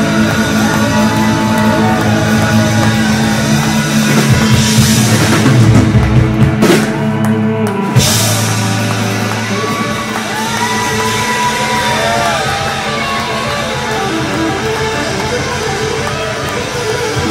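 Live rock band playing an instrumental passage: electric guitars, one with a slide gliding up and down, over bass and drum kit. The band is loudest about five to seven seconds in, breaks off briefly, and comes back in on a hit at about eight seconds.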